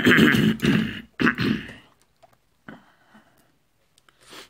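A man clearing his throat in two harsh rasps over the first two seconds, followed by a few faint clicks.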